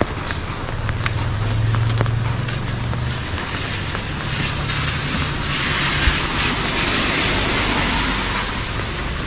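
Street traffic on a rain-wet road. A vehicle engine hums low for the first three seconds, then a hiss swells through the middle and eases near the end.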